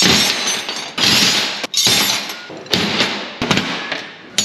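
Handfuls of steel spanners dropped onto a pile of other spanners, clattering and jangling about five times, each crash loud and ringing on as it fades.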